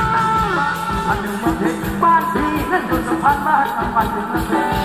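Live band playing Thai ramwong dance music: a steady drum beat under a gliding melody line.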